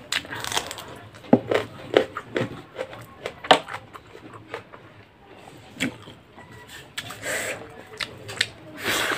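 Close-up eating sounds: a person chewing mouthfuls of tomato rice eaten by hand, with frequent short wet smacks and mouth clicks at an irregular pace. There are a couple of longer rustling sounds about seven and nine seconds in.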